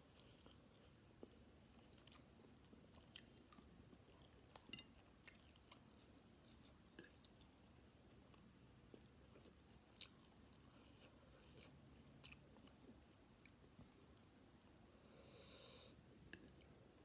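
Quiet, close-miked chewing of chicken chow mein noodles, with many small wet mouth clicks scattered throughout and a short soft hiss about fifteen seconds in.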